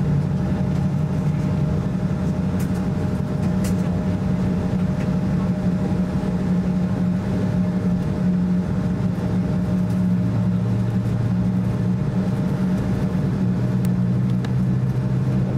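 Steady cabin drone inside an Embraer E170 airliner on the ground, with several low hum tones that shift slightly about ten seconds in. A few faint clicks.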